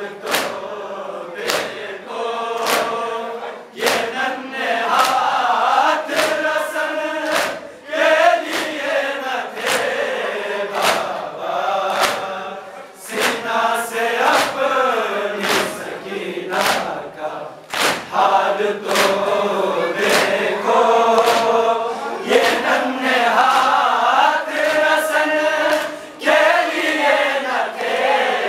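A group of men chanting a Muharram noha (mourning lament) in unison, led at a microphone, with the congregation's chest-beating (matam) slapping in a steady rhythm of about three beats every two seconds.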